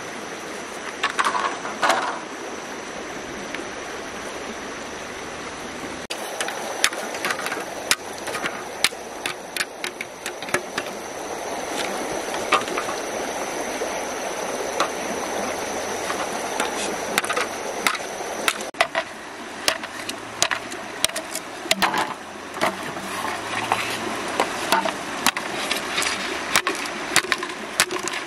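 Machete blade chopping and whittling green bamboo, many sharp knocks that grow more frequent in the second half, over the steady rush of a shallow stream. Two loud clatters about a second and two seconds in.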